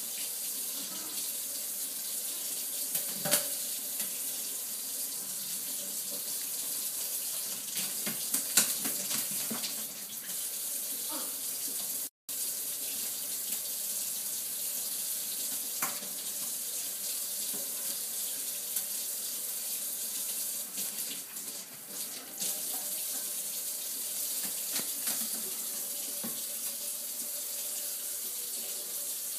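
Kitchen faucet running steadily into a stainless-steel sink, with a few short, sharp sounds over the rushing water.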